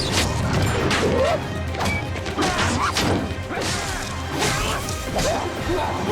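Action-scene fight sound effects: a rapid run of hits and crashes, several a second, over a dramatic film score.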